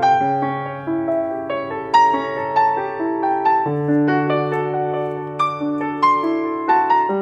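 Background piano music: a gentle melody of struck notes over held bass notes.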